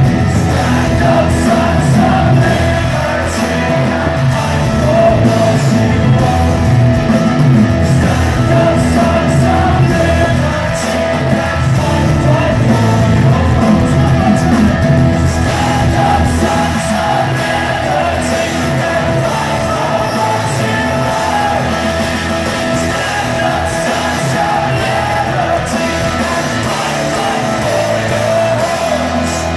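Live rock band playing in a concert hall: acoustic guitar, electric guitar, bass and drums, with a lead singer.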